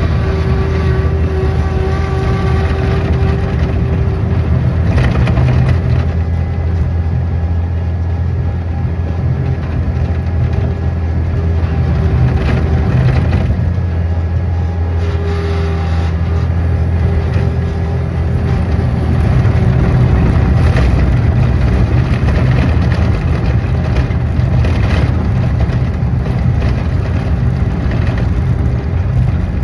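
A large engine running steadily at an even speed, with scattered crunching and rattling over it.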